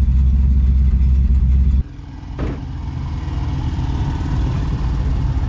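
Ford 289 V8 in a 1965 Mustang fastback running. A loud low rumble drops suddenly about two seconds in to a quieter idle, with a brief click just after.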